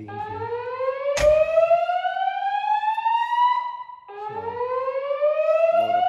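Fire alarm speakers sounding a slow whoop evacuation tone: two long rising sweeps in pitch, the second starting about four seconds in. A sharp click comes about a second in.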